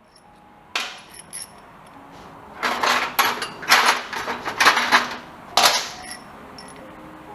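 Metal tools and parts clanking and clattering as they are handled and set down, a string of sharp knocks with a brief metallic ring after some of them, busiest in the middle.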